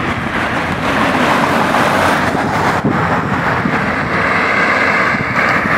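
Steady road-traffic noise from a multi-lane city avenue, a dense, even rush with wind buffeting the microphone.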